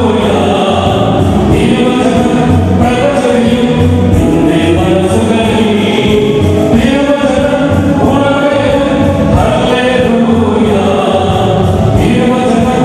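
Church choir singing a hymn with a steady low accompaniment during the Holy Qurbana: the chant that leads into the Gospel reading while the Gospel book is raised.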